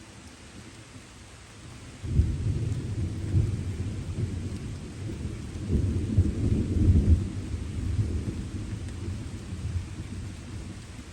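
Distant thunder rolling in suddenly about two seconds in, a low rumble that swells to its loudest near the middle and slowly fades, over a steady hiss of light rain.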